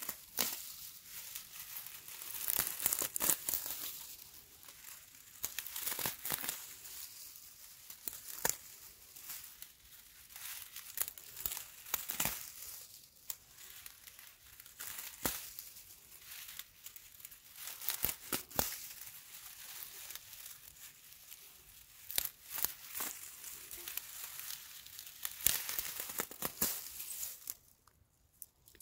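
Dry grass stems crackling and rustling as a hand rummages through a clump and pulls at it, in irregular crisp crackles; it falls quiet just before the end.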